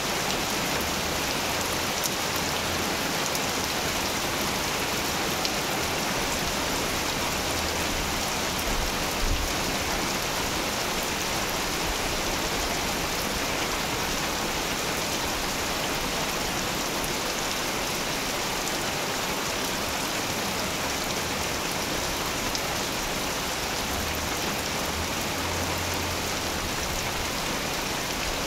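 Heavy rain pouring steadily onto plants, puddles and muddy ground: a dense, even hiss with a few louder single drop hits.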